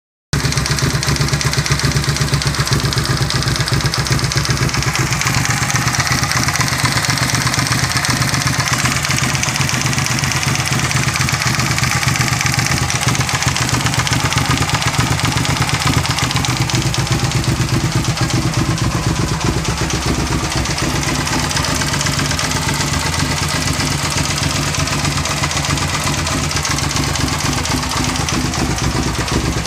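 Suzuki SV650S's 90-degree V-twin engine idling steadily, with a knock from the engine that is the fault being recorded.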